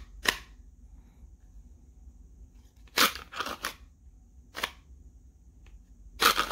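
CZ P10C pistol being pushed into a kydex We the People holster: sharp plastic clicks and scrapes as the gun is worked in against a tight retention. There is one click just after the start, a quick cluster about three seconds in, another about a second and a half later, and a louder pair near the end.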